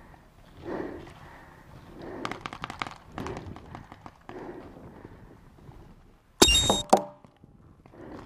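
Paintball pump marker firing: one loud, sharp shot about six and a half seconds in, with a shorter second sound right after it. Before the shot, a quick run of light clicks and soft handling noise.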